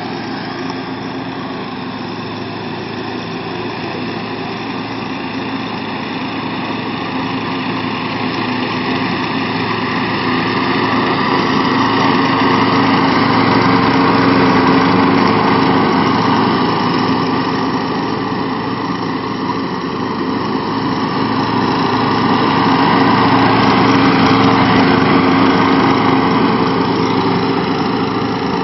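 Riding lawn mower with a gas push mower fixed to its front, small engines running steadily while cutting grass. It grows louder as it comes close, about halfway through, fades a little, then swells again later.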